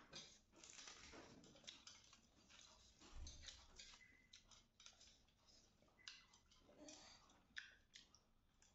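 Faint, irregular clicks and soft smacks of hands mixing and scooping rice on stainless steel plates, with fingertips tapping the metal, and quiet chewing.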